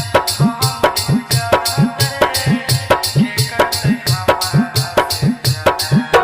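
Instrumental passage of a song: a steady, fast drum beat whose bass strokes slide upward in pitch, over sustained instrument tones.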